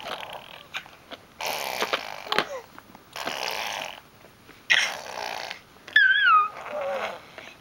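A baby blowing raspberries, making fart-like buzzing sounds with her lips: three bursts of about a second each. Near the end comes a short high squeal that slides down in pitch.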